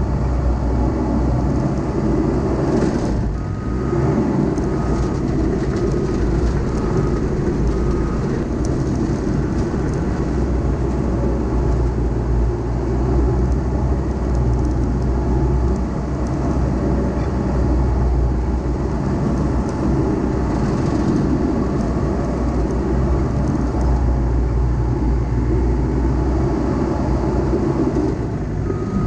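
Heavy diesel earthmoving equipment running steadily under load. A back-up alarm beeps repeatedly from about four to eight seconds in, and starts again at the very end.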